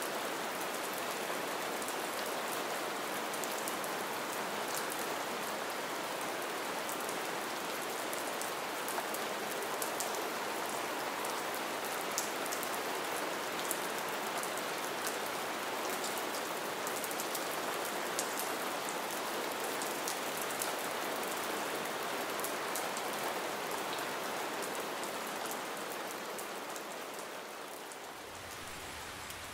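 Steady light rain falling, a soft even hiss with many fine drops ticking sharply through it. It eases and grows quieter over the last couple of seconds.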